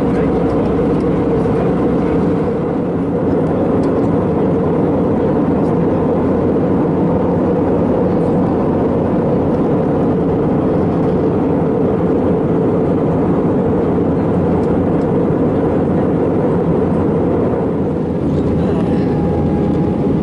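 Airliner cabin noise in flight: the steady sound of the jet engines and rushing air heard from a window seat.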